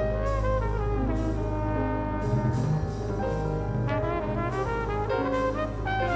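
Jazz band playing live, a brass horn carrying a moving melody line over cymbal washes from the drum kit.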